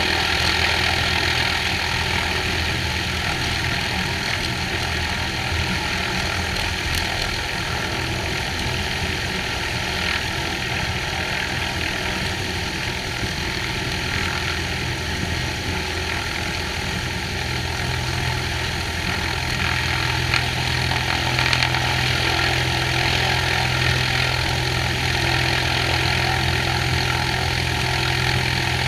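Cessna 182H's six-cylinder Continental O-470 engine and propeller running steadily at low power on the ground. The engine note shifts slightly about two-thirds of the way through.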